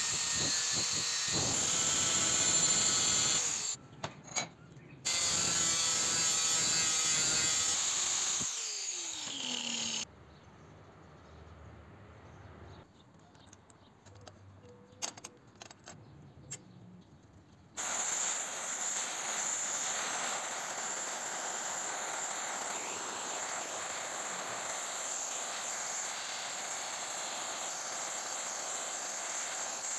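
Abrasive disc grinding steel, the disc's whine falling as it spins down about 8 seconds in. A few seconds of quiet with light clicks of metal parts being handled follow. From about 18 seconds a gas torch burns with a steady hiss.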